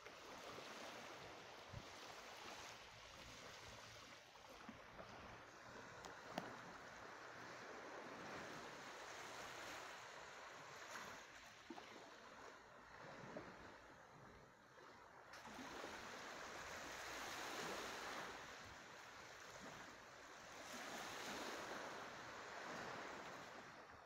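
Faint, gentle surf washing on a sandy shore, a soft hiss that swells and fades slowly, with a couple of brief clicks.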